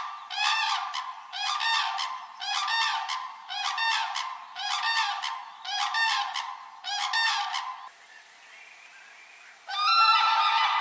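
A bird giving short squeaky calls, repeated a little less than once a second. The calls stop about eight seconds in, and after a brief lull a denser run of calls begins near the end.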